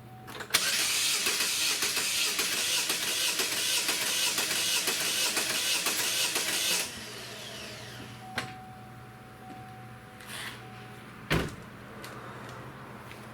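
A 2.4-litre Ecotec four-cylinder is cranked by its starter in clear-flood mode for a compression check, about six seconds of steady cranking that stops abruptly and then winds down. A click and a single knock follow a few seconds later.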